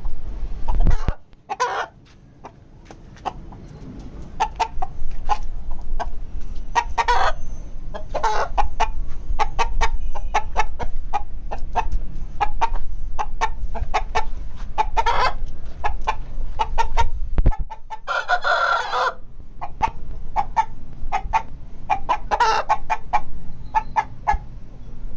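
Rooster clucking in short, repeated calls, with one longer call about eighteen seconds in, over a steady low rumble.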